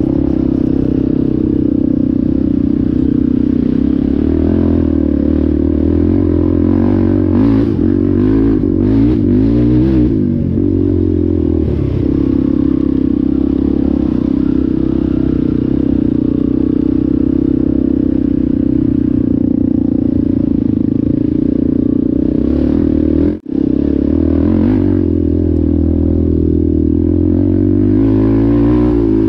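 ATV engine running hard and steadily, its pitch rising and falling about a third of the way in as the throttle changes, with some clatter mixed in. The sound cuts out for an instant about four-fifths of the way through.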